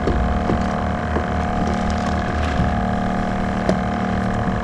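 Steady drone of a small engine running on a fishing boat, with a few faint clicks and knocks.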